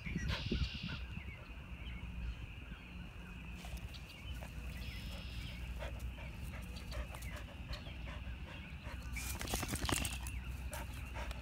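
Golden retriever panting with its mouth open, a steady rhythmic breathing, with a short burst of rustling close to the microphone near the end as the dog moves up to it.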